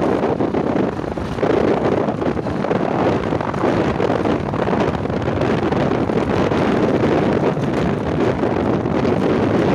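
Steady rush of wind buffeting the microphone on a vehicle moving along a rough dirt road, with the vehicle's running noise mixed in beneath it.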